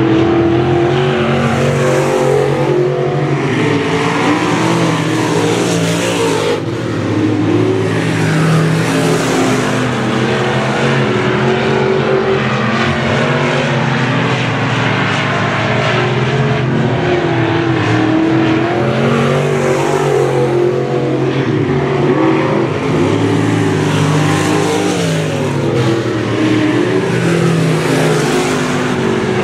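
Dirt-track street stock race cars' engines running hard around the oval, the pitch rising and falling as they accelerate and lift through the turns. The sound swells several times as cars pass close by.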